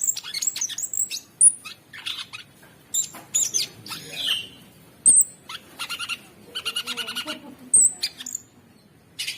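Cucak sungkok songbird singing a fast, varied song of sharp high whistles, chirps and buzzy rattling trills, with a brief pause shortly before the end.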